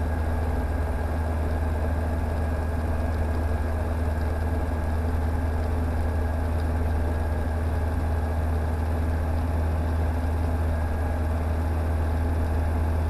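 Rotax 912 four-cylinder engine and propeller of a Czech Sport Aircraft PS28 Cruiser idling steadily on the ground, heard from inside the cockpit as an even, low drone.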